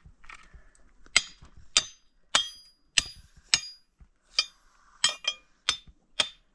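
About ten sharp, ringing metal strikes at a steady hammering pace of roughly one every half second.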